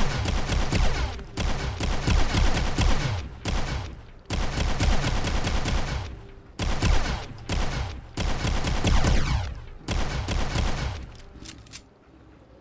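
Enforcer pistol firing in rapid strings of shots, about eight bursts of half a second to two seconds each with short pauses between, the shots echoing.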